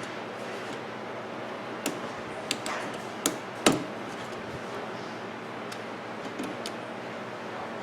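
A few sharp clicks and knocks of small parts being handled as a microwave's control panel and keypad ribbon cable are fitted back together, the loudest about halfway through, over a steady background hiss.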